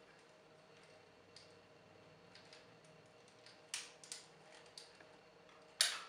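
Plastic clicks and clacks of a Transformers action figure's parts being moved and posed by hand: scattered faint ticks, two sharper clicks about four seconds in, and the loudest snap just before the end.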